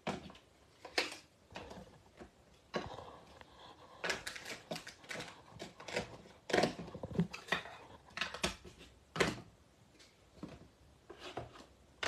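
Plastic Distress Oxide ink pad cases being handled: lids snapped on and off and the pads set down on the table, giving a string of irregular clicks and knocks.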